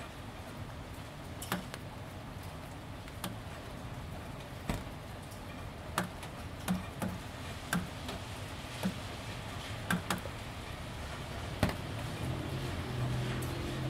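Gentle, steady rain, with water drops striking wet corrugated roof panels as irregular sharp ticks and taps, about one every second. A low hum comes up near the end.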